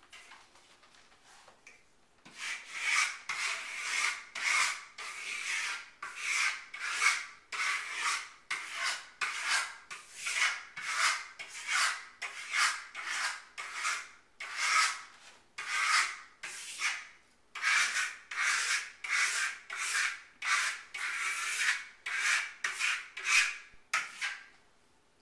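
Trowel scraping Lusterstone finish across a wall in short repeated strokes, about one or two a second, starting about two seconds in.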